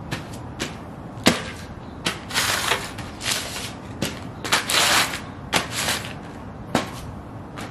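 UGG boots stomping on loose magazine pages on concrete: the paper crinkles and crumples underfoot in short bursts, mixed with sharp thuds of the soles, about a dozen in an uneven rhythm.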